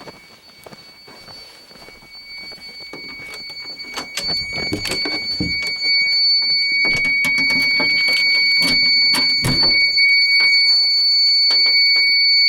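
Fire alarm sounder giving a continuous high-pitched tone after a manual pull station is activated during a system test. The tone grows steadily louder over the first six seconds, then holds, with several knocks and clatters in the middle.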